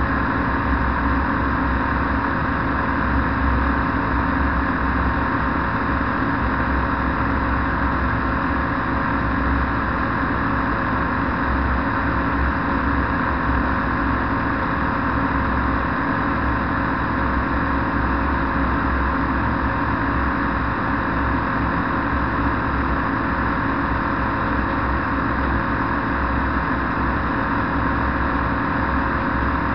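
Flex-wing microlight trike in cruising flight: its engine and propeller running at a steady, unchanging pitch under the rush of wind over the open cockpit.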